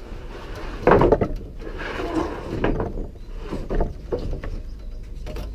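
Irwin hand saw starting a cut through wood: a few uneven saw strokes with sharp knocks, the loudest about a second in.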